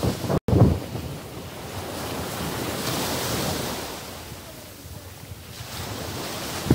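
Small waves breaking and washing up a sandy beach, the wash swelling for a couple of seconds around the middle. Wind buffets the microphone in low thumps at the start and near the end, and the sound drops out for an instant about half a second in.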